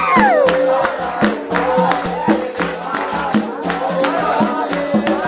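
Capoeira roda music: a group sings to a steady beat of pandeiro and other percussion strokes, with a held pitched tone underneath.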